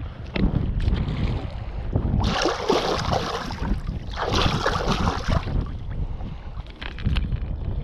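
Water splashing close to the microphone in two bouts, one about two seconds in and another about four seconds in, over a low rumble of wind buffeting the microphone.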